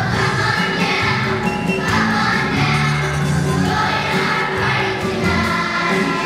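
Children's choir singing with instrumental accompaniment that carries a steady bass line.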